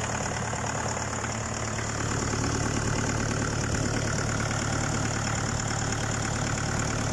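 Mitsubishi L200 DiD turbodiesel engine idling steadily as it warms up, just after its first startup with a newly fitted Borg Warner turbocharger.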